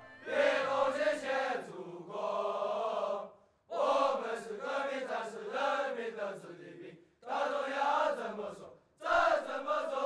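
A group of men singing in unison, phrase by phrase with short breaks between the lines.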